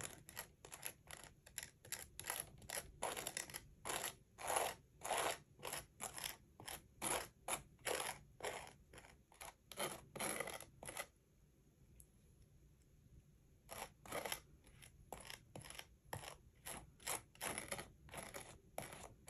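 Metal palette knife scraping glittery stencil paste across a lace stencil in short repeated strokes, about two a second, with a pause of a couple of seconds just after the middle.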